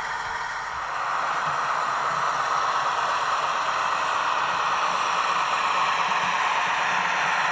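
HO scale model diesel locomotive running, its sound decoder playing through the model's small speaker as a steady hiss that grows louder about a second in.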